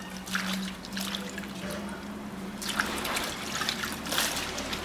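Water splashing and dripping as a bunch of spring onions is swished in a basin and lifted out, in several short splashes, with a low steady hum underneath.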